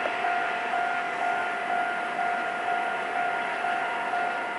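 A railway level-crossing warning bell rings steadily, a pulsing electronic tone about twice a second, over the fading rumble of a departing freight train.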